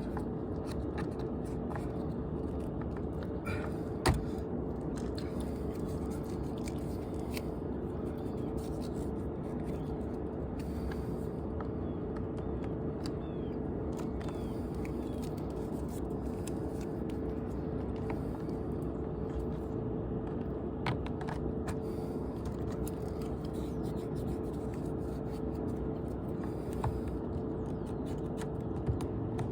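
A steady mechanical hum with a rushing, hissing noise underneath, unchanging throughout, and one sharp knock about four seconds in.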